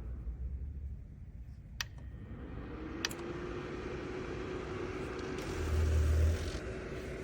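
Small electric space heater's fan spinning back up: after a pause, two clicks, then a hum that rises in pitch and settles steady. A brief low rumble comes near the end.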